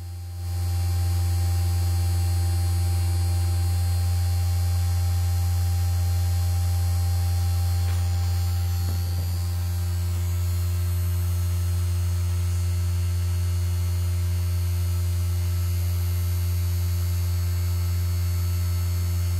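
Steady low electrical hum from the electromagnet coils that levitate a small cube magnet between them. It swells up just after the start, then holds an even pitch and level.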